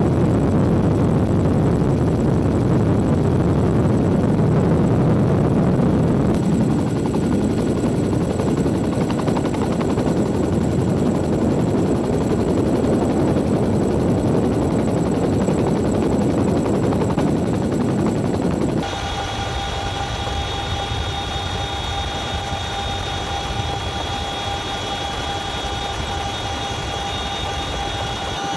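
Boeing CH-47 Chinook tandem-rotor helicopter running, with heavy rotor noise. About two-thirds of the way through, the sound cuts abruptly to a quieter, steadier one with a high engine whine.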